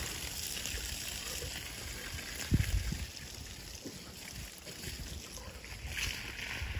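Water spraying from a garden hose with a steady hiss, over a low outdoor rumble, with one dull thump about two and a half seconds in.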